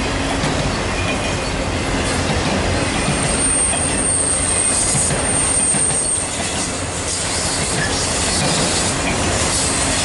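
Freight train cars rolling past at close range, a steady rumble and rattle of wheels on rail, with a high wheel squeal for a few seconds starting about three seconds in.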